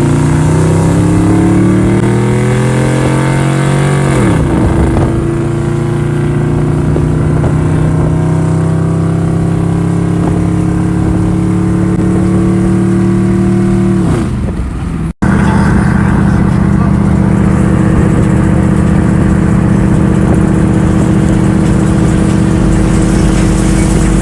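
Loud vehicle engine accelerating: its pitch climbs, drops sharply about four seconds in, climbs again for about ten seconds and drops. After a brief break in the sound about fifteen seconds in, it runs at a steady pitch.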